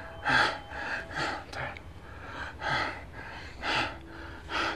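A bedridden man breathing with effort: a run of short, irregular gasping breaths, the laboured breathing of shortness of breath.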